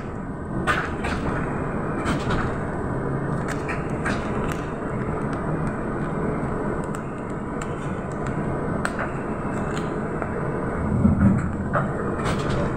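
Cabin noise inside a moving Trolza-5275.05 Optima trolleybus: a steady rumble of the ride with scattered clicks and rattles from the body and a faint low hum. It grows louder for a moment near the end.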